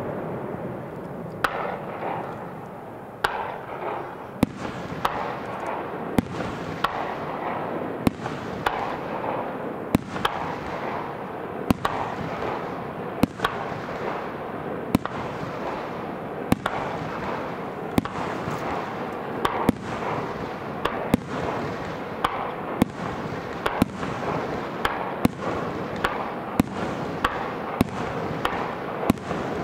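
Aerial fireworks shells bursting in a steady barrage: a sharp bang about every one and a half seconds, with smaller pops between, over a continuous noisy wash.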